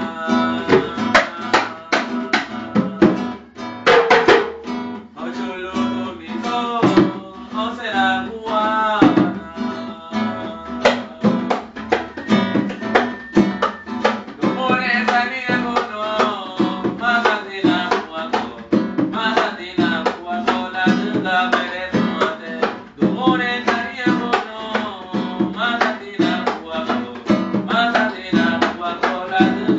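A paranda song: acoustic guitar strummed and plucked in a steady rhythm, with a man singing over it.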